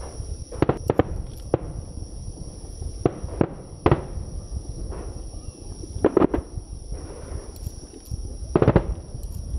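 Starmine fireworks going off: a series of sharp bangs and cracks from bursting shells, clustered about a second in, near four seconds, about six seconds in and near the end, over a low steady rumble.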